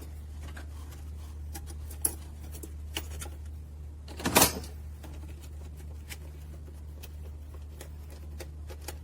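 Scattered light clicks and knocks of a 10 mm socket working bolts on a car's air filter housing, with one louder clatter about four and a half seconds in. A steady low hum runs underneath.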